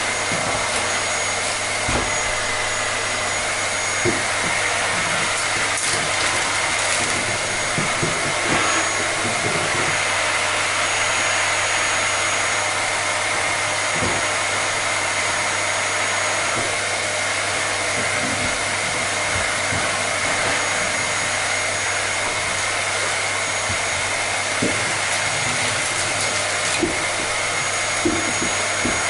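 Vacuum cleaner running steadily: a continuous rush of air with a high, even whine over a low hum.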